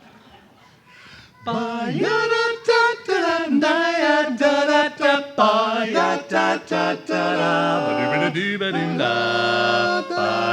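Barbershop quartet singing a cappella in four-part harmony, starting about a second and a half in.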